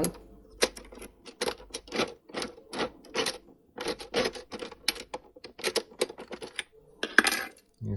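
Metal pick decoder being inserted and worked in a Cisa RS3 lock: a run of sharp irregular metal clicks and short scrapes, several a second, with a louder scrape near the end.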